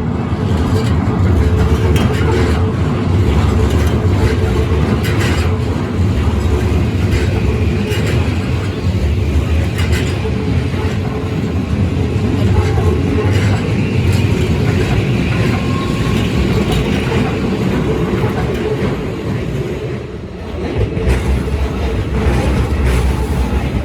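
Keikyu Line electric train running over a level crossing: a steady, loud rumble of wheels on rail with occasional sharper clacks. The rumble dips briefly about twenty seconds in, then picks up again.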